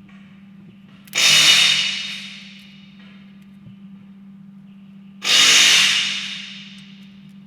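Two loud hissing blasts about four seconds apart, each starting suddenly and tailing off over a second or so, over a steady low hum.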